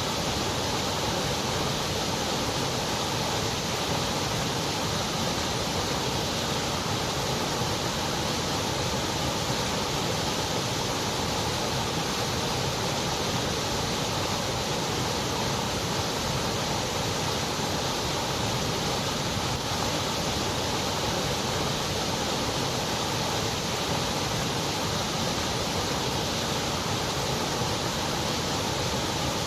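Steady, unbroken synthetic white noise, an even hiss with no rhythm or change, cut off above about 8 kHz.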